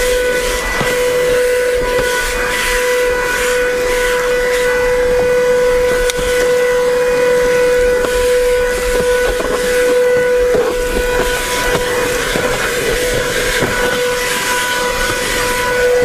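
Comfyer 22.2 V cordless handheld vacuum running with a crevice nozzle: a steady motor whine over rushing air, the hiss of the airflow shifting as the nozzle is moved along the surfaces.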